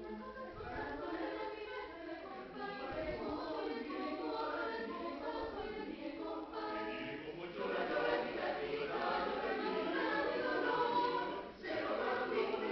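Mixed choir of men's and women's voices singing, growing louder about halfway through, with a brief break near the end.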